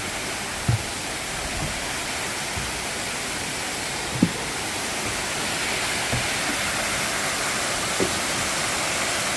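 Waterfall rushing steadily, a dense even roar of falling water, with a few faint soft thumps.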